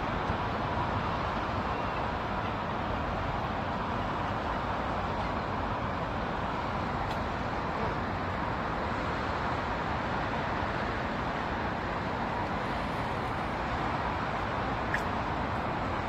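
Steady distant city road traffic, an even, unbroken hum with no single vehicle standing out. A faint click comes about fifteen seconds in.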